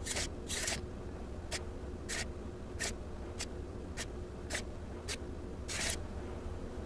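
Laser-cut mechanical seven-segment display moving its segments: about ten short clacks, one every half second or so, with a longer one near the end.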